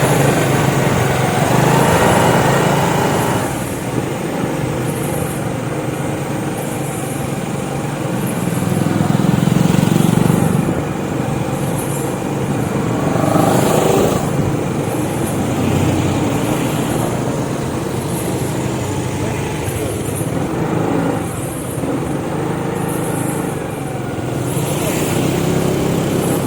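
Motor vehicle engine running steadily, rising in level for a few seconds twice.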